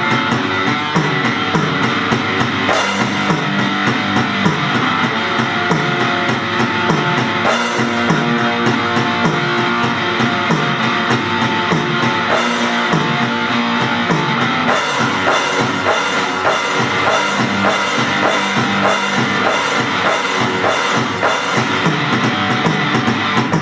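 Rock music: a band with a drum kit keeping a steady beat under guitar.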